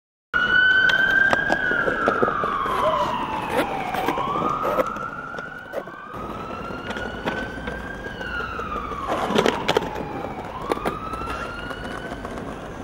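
Emergency vehicle siren wailing, starting abruptly, its pitch sliding slowly down and back up in long sweeps. Scattered sharp clicks and knocks sound over it.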